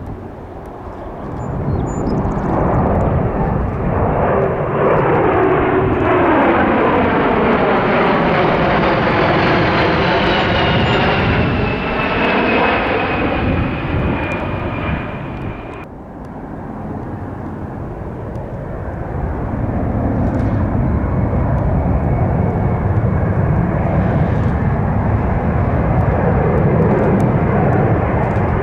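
Fixed-wing aircraft passing close by: engine noise swells and fades with a high whine that falls in pitch as it goes past. After an abrupt cut about halfway through, engine noise from a passing aircraft builds again.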